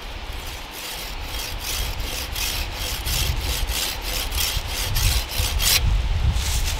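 Wooden-handled hand pruning saw cutting through a green, bark-covered stick: fast, even back-and-forth strokes, about four a second. The sawing pauses briefly near the end, then gives a last short burst.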